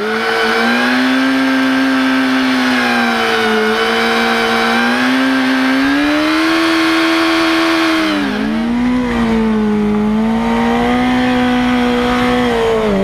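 Yamaha YZF-R6's inline-four engine held at high revs during a burnout, the rear tyre spinning on the tarmac. The pitch stays steady with slight wavering, dips briefly a little past the middle, then climbs back.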